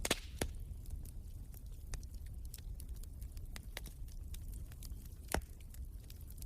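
Wood fire crackling in a fireplace: irregular sharp pops and snaps over a low rumble, with the loudest pops at the start and a little past five seconds in.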